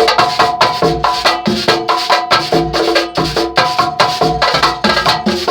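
Swingueira percussion ensemble playing a fast, tight groove: dense even strokes over low drum thuds about twice a second, with steady pitched notes ringing through.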